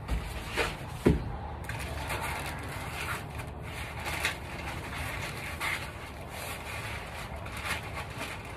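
Foam packing blocks and plastic wrap around a telescope pier being handled and shifted, with light rustling and one sharp knock about a second in.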